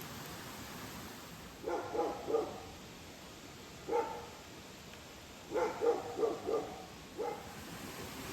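A dog barking in short groups of barks, three, then one, then four, then one more, over a steady background hiss.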